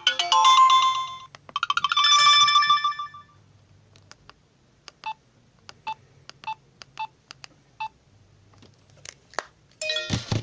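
Alcatel OT 2050 mobile phone playing two short polyphonic message-alert melodies for about three seconds, followed by a string of short, faint beeps, roughly one every three-quarters of a second, and a louder burst near the end.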